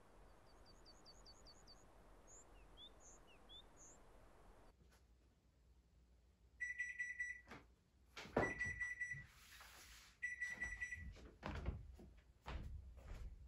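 Small birds chirping over a steady outdoor hiss, then an electric oven's timer beeping three times, each a long high beep, a little under two seconds apart. Knocks and thumps of a wooden chair on a wooden floor come in among the beeps as someone gets up from the table.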